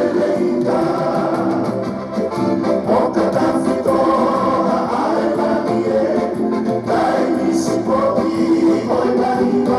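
Recorded song: several voices singing together in harmony over instrumental backing.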